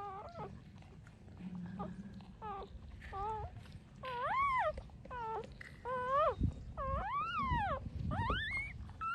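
Young puppies whining: a string of about ten short, high-pitched cries, each rising and falling in pitch, growing longer and louder from about four seconds in.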